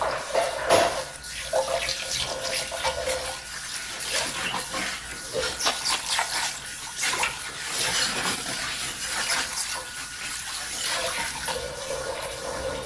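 Dishes being washed by hand at a sink: running tap water with many small clinks and knocks of dishes and utensils.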